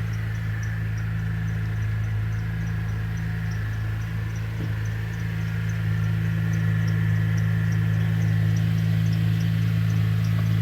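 Pontiac G8 engine idling on a cold start, with a steady hum and a faint high chirp repeating about two to three times a second from the belt drive. The owner calls it belt squeal that comes back on cold starts and fades as the engine warms, even with a new belt, tensioner and pulley fitted.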